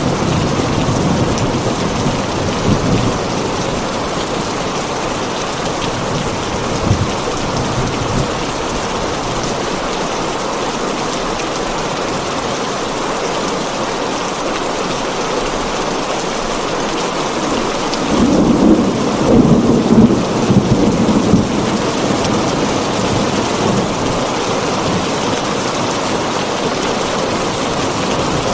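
Heavy rain falling steadily on a tin roof, with thunder: a low rumble at the start and a louder, longer roll about two-thirds of the way through.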